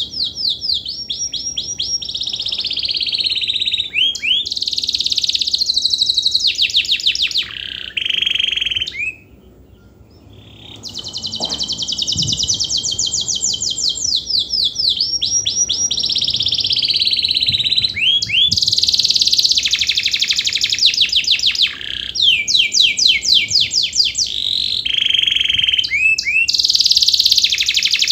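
Domestic canary singing a long song of fast rolling trills and rapid repeated chirps. It stops for about a second and a half around nine seconds in, then takes up the trills again.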